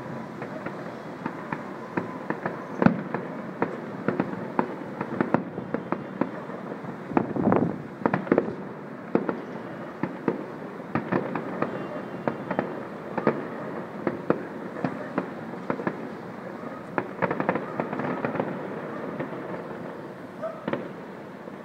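Fireworks going off over a city: a steady crackle of many scattered pops and bangs, with a louder, denser cluster of bangs about seven seconds in.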